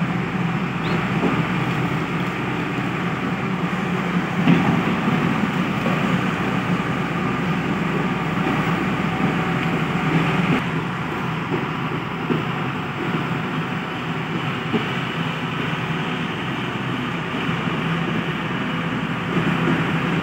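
Hyundai 215 crawler excavator travelling on its tracks: its diesel engine runs steadily, with the mechanical noise of the moving machine.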